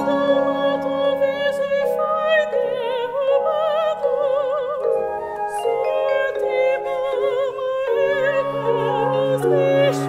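Operatic women's voices singing long notes with wide vibrato over a small chamber ensemble holding sustained low notes, in a contemporary opera.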